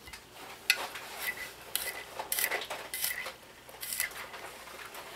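Kitchen knife dicing garlic on a marble cutting board: irregular sharp taps of the blade on the stone, each with a brief ring.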